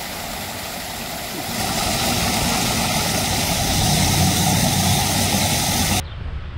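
Many water jets of an outdoor fountain spraying and splashing into the basin, a steady hiss over a low engine-like rumble. It grows louder about a second and a half in and cuts off suddenly near the end, leaving quieter outdoor sound.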